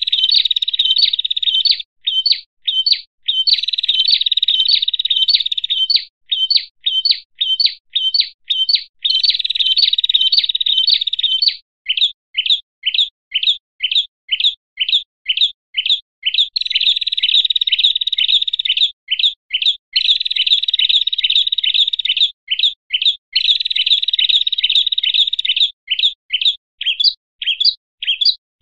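Prenjak and other small songbirds in an agitated, noisy chorus: runs of sharp, rapid chip notes alternating with stretches of dense, continuous chattering trills. It is the excited mobbing-type chatter used as a bird-trapping lure call.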